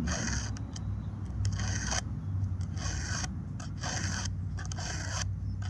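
A file scraping across a Stihl 362 chainsaw's chain teeth in about five short strokes roughly a second apart, sharpening the cutters by hand. A low steady hum runs underneath.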